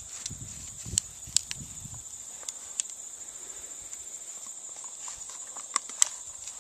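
Golden retriever gnawing a wooden stick: soft crunching of teeth on wood with scattered sharp clicks and cracks, the loudest about a second in and twice near the end.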